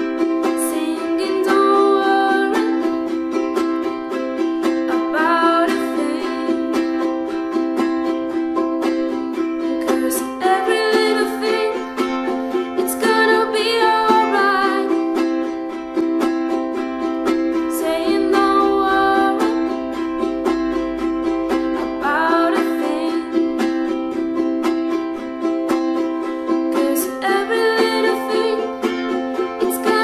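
Ukulele strummed in a steady rhythm on a C major chord, with a voice singing short phrases of melody over it.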